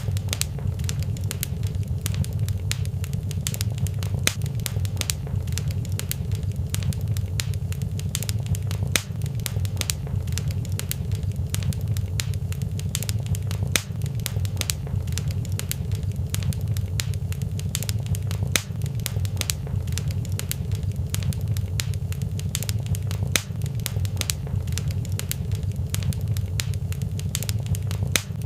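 Wood fire crackling in a fireplace: a dense, steady run of sharp pops and snaps over a low, even rumble of the flames.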